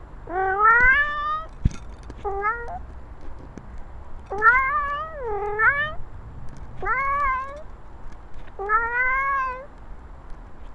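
Egyptian Mau cat meowing loudly, close to the microphone on its own collar: five drawn-out calls, most of them rising in pitch.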